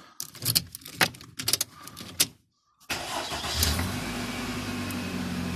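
Key clicking in the ignition of a 1997 Toyota Camry, then about three seconds in the engine starts and settles into a steady idle: the new key is starting the car.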